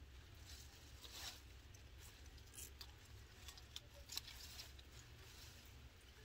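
Faint rustling and soft crackling of fresh leaf lettuce being handled and set into a woven bamboo basket, with a few slightly louder rustles.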